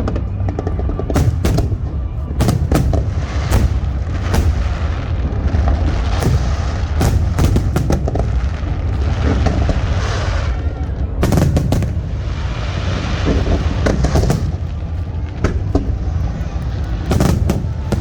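Fireworks display: aerial shells bursting in quick, irregular succession, sharp bangs over a continuous low rumble.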